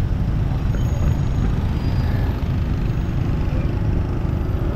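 Road traffic heard from a moving motorbike: a steady low rumble of scooter and tuk-tuk engines mixed with wind buffeting the microphone.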